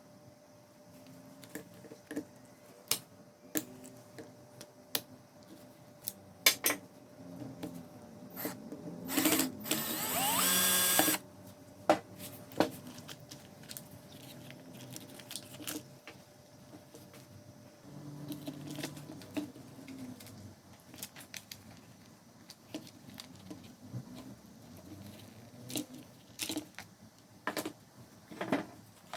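Clicks and knocks of tools and parts being handled. Partway through, an electric power tool like a drill runs for about two seconds, its pitch rising as the motor spins up.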